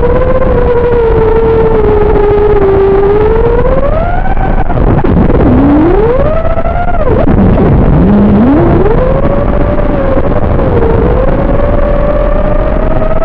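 XBEE-X v2 FPV quadcopter's brushless motors and propellers whining in flight, the pitch gliding up and down with the throttle. The pitch dips sharply about five seconds in and again about eight seconds in, then climbs back up, over a steady rush of prop wash.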